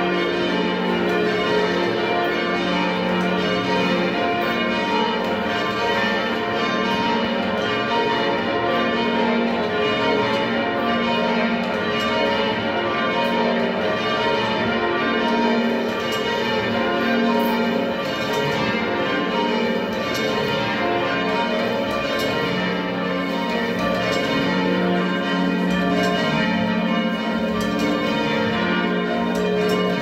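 Six church bells being rung down in peal, sounding together in a steady, continuous ringing pattern as the ringers lower them from the up position.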